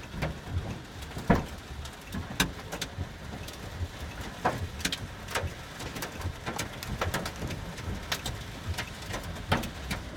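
Large hailstones hitting the car's hood and body, heard from inside the car as irregular sharp knocks, about one or two a second and the loudest just over a second in, over a steady rush of heavy rain.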